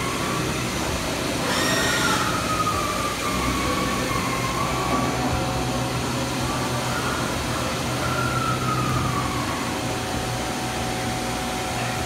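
Steady machinery noise with a constant low hum and faint, wavering high whines drifting up and down in pitch.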